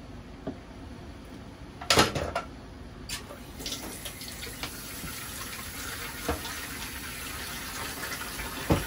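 A few metal clanks, then a tap running steadily into a sink, with a knock near the end.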